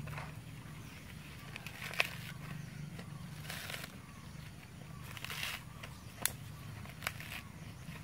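Dry twigs and brush rustling and snapping as branches are handled and broken for a small cooking fire, with a few sharp cracks, over a steady low hum.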